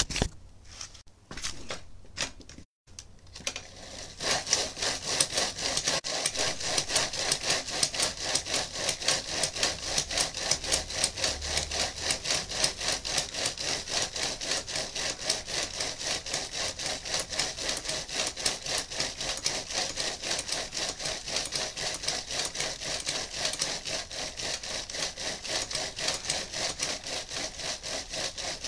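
A person breathing hard and fast through hands cupped over the mouth and nose, in a quick, even rasping rhythm that starts about four seconds in and keeps going. It is forced breathing meant to strain the lungs.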